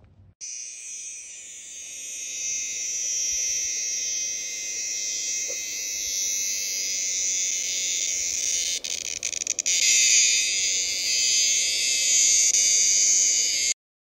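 A cicada singing: a loud, steady, high buzz that starts abruptly about half a second in and swells. It stutters briefly about nine seconds in, then carries on at full strength.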